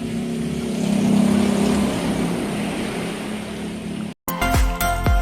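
An engine running steadily, swelling slightly about a second in, then cut off abruptly; music with a beat starts just before the end.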